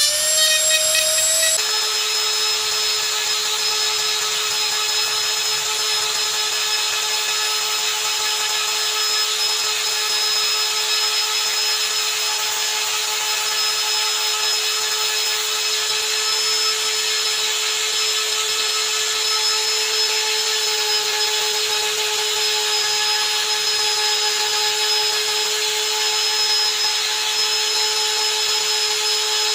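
Handheld electric die grinder running at a steady high whine as its rotary burr carves wood, the pitch stepping down slightly about a second and a half in.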